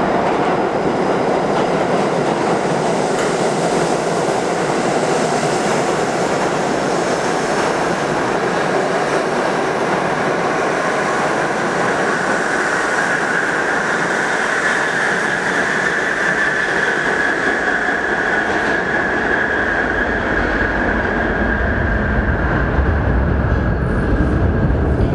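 New York City subway train passing through an underground station: a steady rumble and rattle of wheels on rail, with a high wheel squeal that builds about halfway through and holds until near the end.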